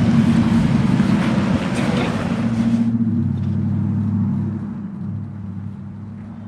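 A motor vehicle engine running steadily with a rushing hiss over it; about three seconds in the hiss cuts off and the hum carries on lower, slowly fading.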